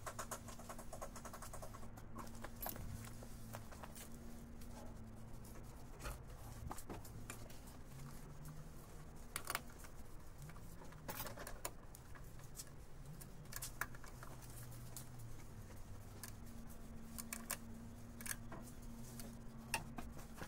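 Scattered light clicks and taps of hand tools being worked on a carburetor, over a faint low hum.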